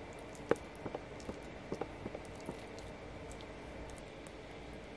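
Wooden spoon serving cooked lentils onto a silicone plate and digging into a tub of quark: a handful of soft taps and clicks in the first half, with faint wet squishing, over a low steady hum.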